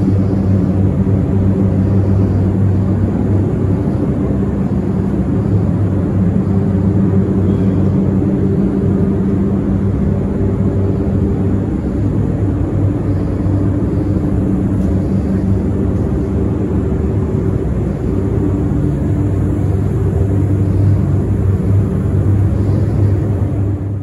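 Spray booth ventilation fans running with a steady, loud mechanical hum.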